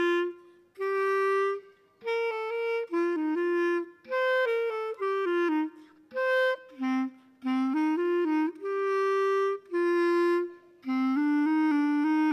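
A single wind instrument playing an unaccompanied melody of held and stepping notes in short phrases, with brief pauses between them.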